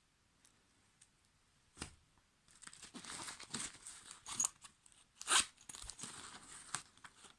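A single click about two seconds in, then light crinkling and rustling with a few sharper clicks as small items are handled in a wallet.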